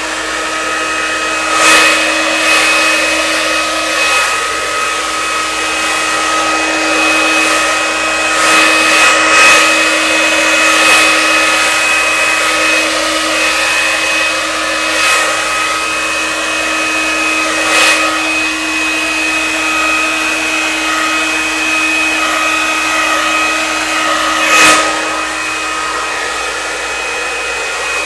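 Hair dryer running continuously, blowing wet acrylic paint across a canvas: a rush of air over a steady whine, with a few brief surges in loudness.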